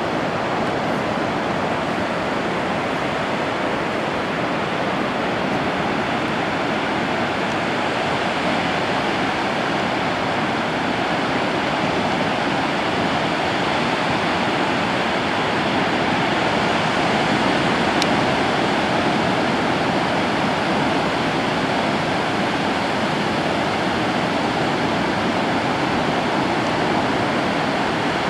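Ocean surf breaking on a sandy beach: a steady, unbroken rush of waves.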